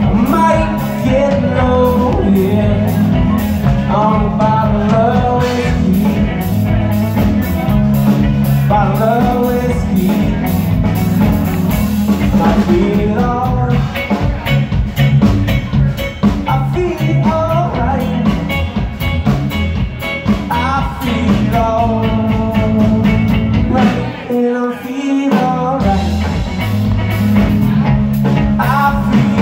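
Live blues-rock band playing: electric guitar, bass guitar and drum kit, with bending guitar lines over a steady bass and drum groove. The bass and drums drop out for about a second near the end, then come back in.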